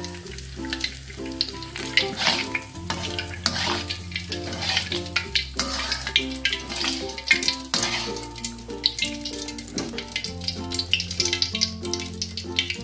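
Background music with slow, held bass notes and a simple melody, over the crackling sizzle of battered shrimp frying in hot oil in a wok.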